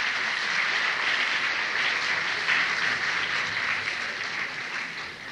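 Large audience applauding, dying down near the end.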